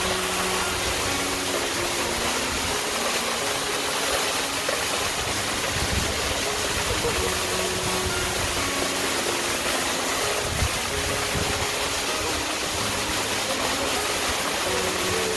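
A waterfall rushing steadily, a dense unbroken noise of falling water.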